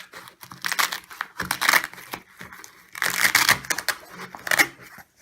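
A bag rustling and crinkling as it is handled, in irregular bursts of crackly noise, loudest about three seconds in.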